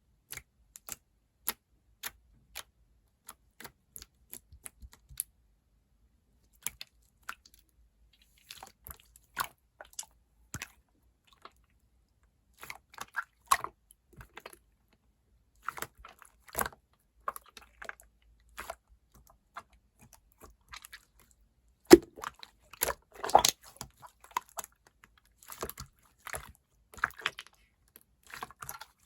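Mixed clear slime being pressed and stretched by hand: sharp clicks and pops of trapped air. They start as single clicks about twice a second and thicken into crackly bunches of pops, the loudest about 22 s in.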